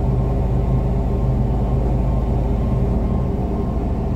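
Crane engine running steadily, a low even drone heard from inside the operator's cab.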